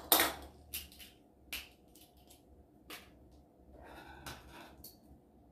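Scattered sharp clicks and light knocks, the loudest right at the start, with a short rustle about four seconds in: small diorama pieces and craft tools being handled and set down while gluing.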